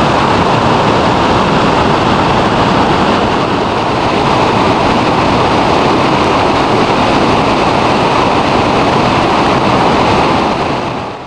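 Flood-swollen creek in high water rushing over rocks and ice shelves: a steady, loud noise of fast water that fades out near the end.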